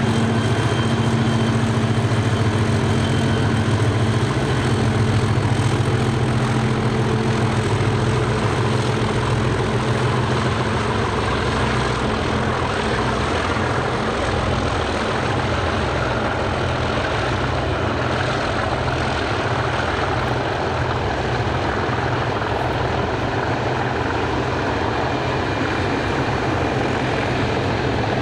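A pair of Class 37 diesel locomotives working hard under load, their English Electric V12 engines giving the deep, steady thrash the class is known for. After about ten seconds the engine note thins as the locomotives draw away, leaving a rougher, continuous rumble as the wagons roll past.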